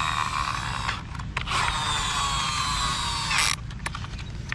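Whirring of a plastic toy truck's geared wheel mechanism as it is turned by hand, its pitch sliding slightly down. It stops briefly about a second in, then runs again and cuts off about three and a half seconds in, followed by a few clicks of plastic parts.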